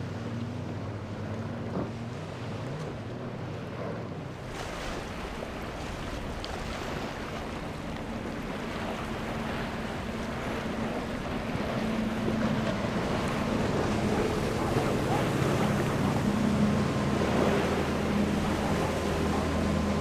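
Outboard motors running on boats crossing choppy water, with waves splashing and wind noise on the microphone. A steady engine hum gets louder about halfway through, after a change of shot about four seconds in.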